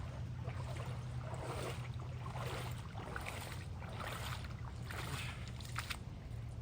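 Irregular splashing and sloshing of water with handling noises, over a steady low hum.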